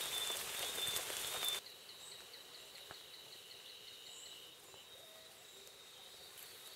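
Pouring rain hissing in rainforest, with a thin, high steady tone above it; about a second and a half in, the rain sound cuts off abruptly, leaving a faint, quiet forest background in which the high tone carries on.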